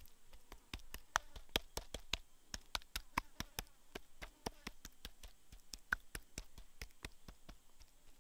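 A hand patting and rubbing salt into raw mackerel tuna pieces on a wooden cutting board: a quick, irregular series of sharp taps, about four a second.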